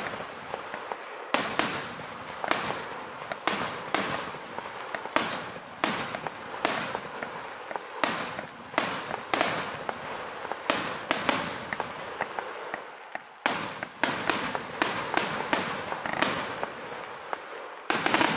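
A 49-shot, 30 mm firework cake firing its shots in quick succession, about two sharp bangs a second from the small shells launching and bursting, with hissing between them. There is a short lull about two-thirds of the way through and a louder burst at the very end.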